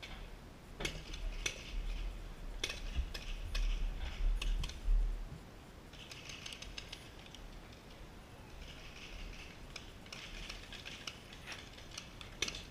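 Irregular sharp clicks and short rattling bursts of paintball markers firing across the field. Wind rumbles on the microphone during the first five seconds.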